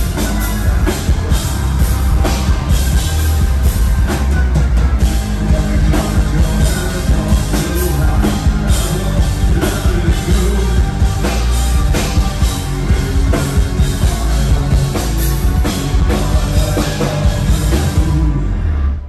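Rock band playing live at full volume, a drum kit keeping a steady beat under guitars, with a heavy bass end. The music cuts off suddenly at the very end.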